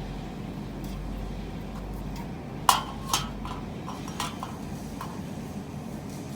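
Steady low hum of a laser welding machine running, with a few sharp metallic clinks about halfway through, the first the loudest.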